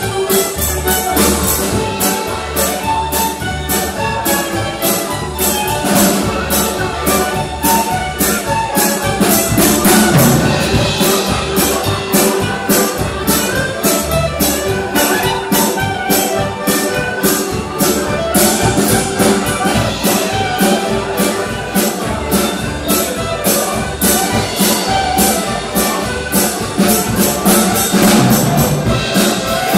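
Live barn dance band playing a lively dance tune, with fiddles, piano accordion, clarinet, double bass and drum kit over a steady beat.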